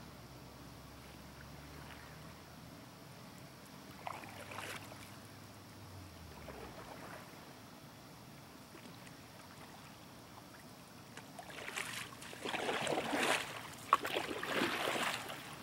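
Canoe paddle strokes splashing and churning the water as the canoe comes in fast, loudest in the last four seconds, with a sharp knock near the end. A faint low hum stops about halfway through.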